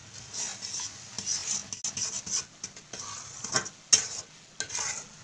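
A steel ladle stirring and scraping bubbling syrup in a steel kadhai, in a run of irregular scrapes, with a sharp knock of metal on metal about four seconds in.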